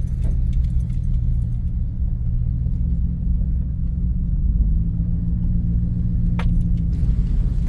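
GMC Sierra pickup truck's engine running with a steady low rumble. A brief high chirp sounds near the end.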